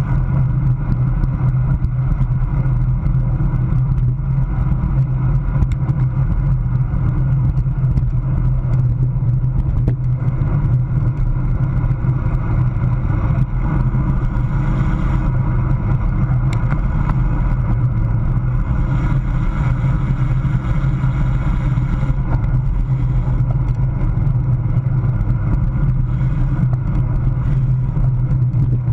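Steady wind rush and tyre-on-road noise picked up by a camera mounted on a road bike's handlebars, riding at about 22 mph.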